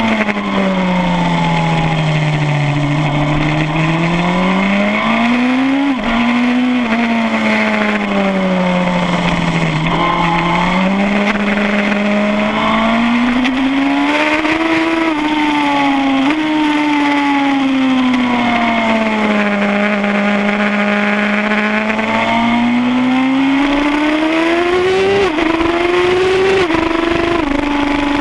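2007 Suzuki GSX-R1000 K7's inline-four engine at full lap speed on track. Its note falls and climbs again several times as the throttle is rolled off and opened through the corners, with sudden jumps in pitch near the end.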